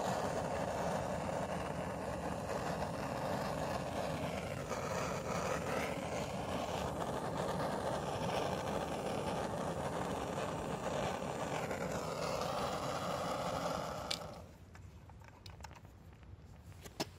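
Handheld gas torch burning with a steady hiss as it heats oil in a small metal cup to relight it, then shut off abruptly about fourteen seconds in.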